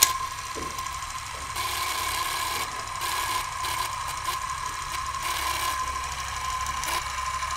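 Sound effect of an old film projector running: a fast, steady mechanical clatter with hiss and a steady high whine. It starts abruptly with a click.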